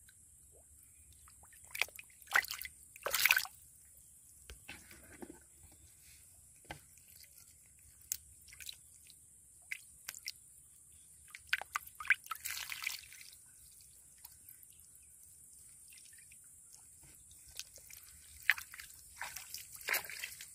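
Shallow muddy water splashing and dripping in short, irregular bursts, loudest about three seconds in, with more clusters in the middle and near the end.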